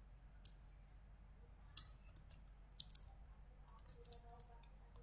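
A few separate sharp clicks from a computer mouse and keyboard, the loudest about two seconds in, over a faint steady low hum.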